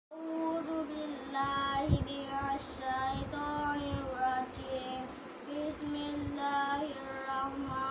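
A young boy chanting Quranic recitation in Arabic, in a melodic tajweed style with long held notes that glide between pitches, phrase after phrase. A few low thumps sound under the voice.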